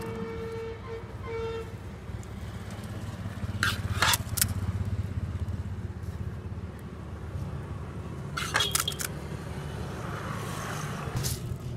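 Steel ladle knocking and scraping against an aluminium pot as spiced potato filling is scooped, with a few sharp clinks about four seconds in and again at about eight and a half seconds. Underneath is a steady low rumble of street traffic.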